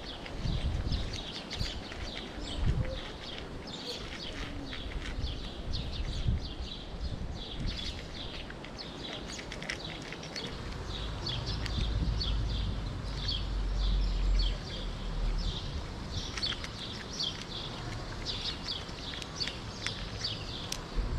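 A cat crunching and chewing dry kibble close by, in a steady run of quick crunches, with birds chirping in the background. A low rumble swells for a few seconds about twelve seconds in.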